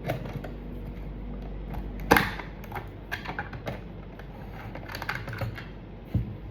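Irregular light plastic clicks and taps from handling an analog multimeter and its test probes, with one sharper knock about two seconds in, over a steady low hum.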